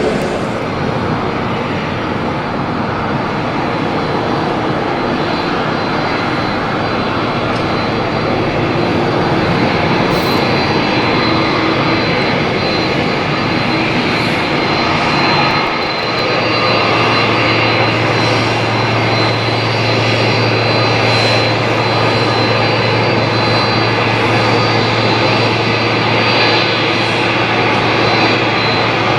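Jet airliner engines running loud and steady, with a thin high whine. A low steady hum comes in about halfway through and holds.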